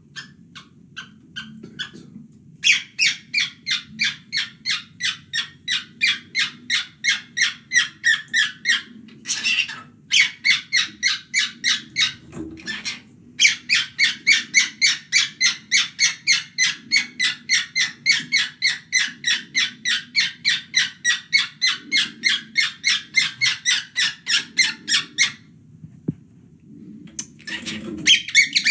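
Finger rubbed back and forth along a knurled metal shower hose, making rapid rasping strokes about three to four a second in long runs, with short breaks and a stop a few seconds before the end. A cockatiel squawks briefly near the end.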